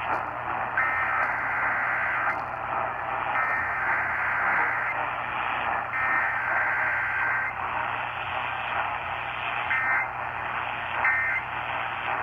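Emergency Alert System SAME data bursts received over AM radio: three screeching digital bursts about a second and a half long, then three short ones near the end, all under steady static hiss.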